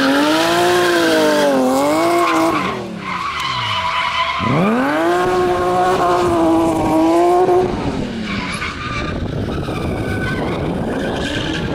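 BMW E36 drift car's engine revving hard and held high through a drift, dropping off briefly about three seconds in, then climbing and holding again before fading out about eight seconds in. Its tyres skid and squeal throughout.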